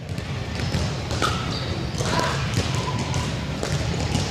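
Pickleball paddles popping against the plastic ball during a doubles rally, with short sneaker squeaks on a hardwood gym floor.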